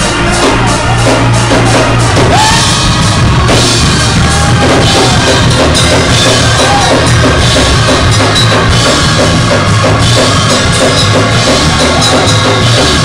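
Loud live church praise music led by a drum kit, playing steadily throughout.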